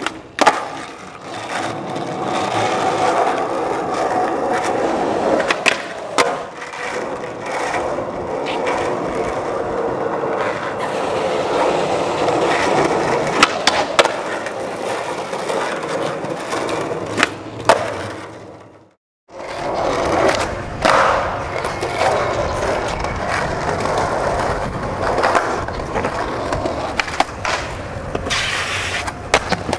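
Skateboard wheels rolling on concrete, with sharp pops, board clacks and landings. The sound cuts out briefly about two-thirds of the way through, then more rolling resumes, ending with the board on a concrete ledge near the end.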